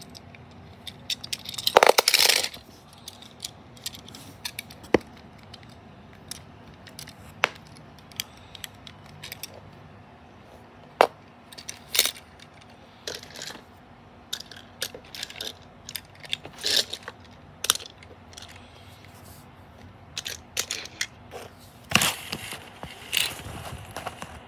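Handling noise from a small die-cast toy car: scattered clicks, taps and light scrapes as it is turned in the fingers and set down among other toy cars, with a louder clatter about two seconds in.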